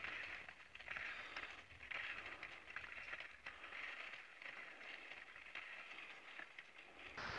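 Touring skis sliding and crunching over firm snow as a climber skins uphill, a rasping scrape about once a second with each stride. Near the end a steady hiss cuts in abruptly.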